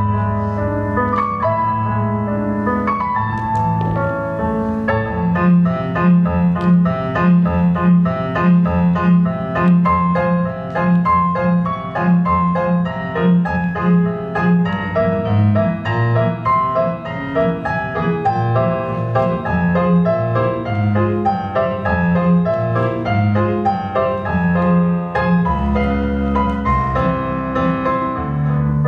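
Classical piano music played at a steady tempo, with a repeated low bass note pulsing about twice a second.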